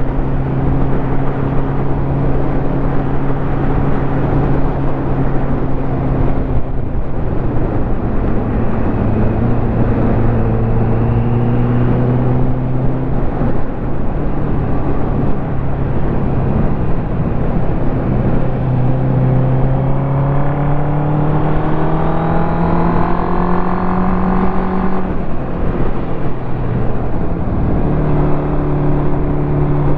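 Ducati motorcycle engine running under way, with wind noise. It holds a steady note, changes pitch about seven seconds in, climbs steadily in revs from about a third of the way from the end until it drops back sharply, then settles to a steady note again.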